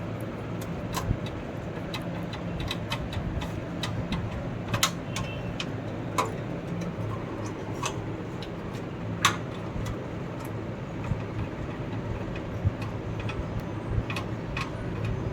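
Scattered light clicks and taps of the graphics card's bracket screw being fitted into a PC case by hand, the loudest around 5 and 9 seconds in, over a steady low hum.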